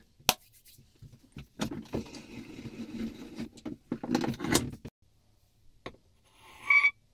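A beech block handled on a wooden workbench and clamped in a wooden vise: a sharp knock, then a few seconds of wood scuffing and rubbing against wood, and a short squeak near the end as a steel plate is set against the block.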